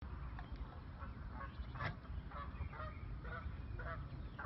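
Geese honking repeatedly, short calls about twice a second with one louder honk near the middle, over a steady low rumble.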